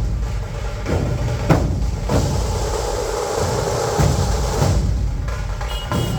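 Dhol drums being beaten: loud strikes every half second to a second over a dense, steady din of drumming.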